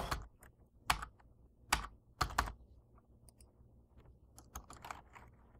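Typing on a computer keyboard: a few separate, spaced keystrokes in the first half, then a quicker run of fainter key clicks near the end.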